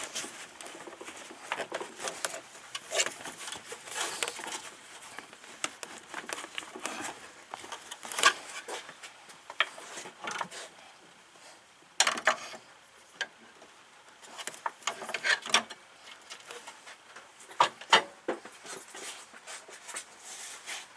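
Irregular clicks, taps and knocks of hand work on a car: tools and parts being handled, with a few sharper clacks scattered through.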